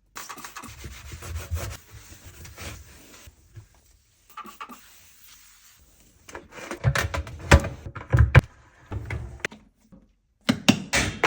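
Scrubbing and rubbing while cleaning a dishwasher, with clusters of sharp knocks and clatter about two-thirds of the way through and again at the end.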